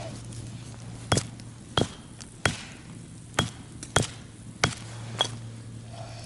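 A black walnut struck repeatedly with a hand-held stone on a larger rock to crack its hard shell: seven sharp knocks, one every half second to second.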